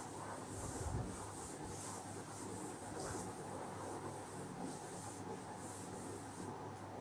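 Cloth duster wiping marker writing off a whiteboard in repeated rubbing strokes, each a short hiss.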